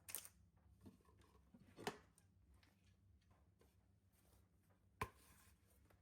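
Near silence broken by three brief clicks or knocks: one just after the start, one a little before two seconds in, and the sharpest about five seconds in.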